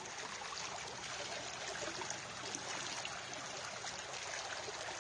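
Running water, a steady, unbroken rushing flow.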